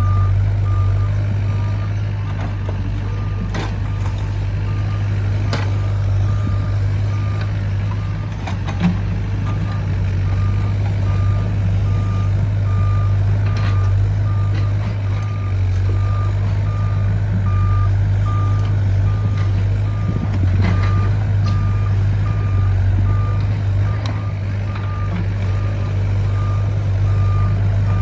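Wheeled excavator's diesel engine running with a steady low drone, its travel alarm beeping about twice a second without a break. A few sharp knocks now and then.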